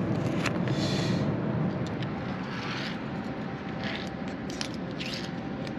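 Light clicks and short scrapes of small stainless-steel rigging terminal parts being handled, over a steady low background rumble.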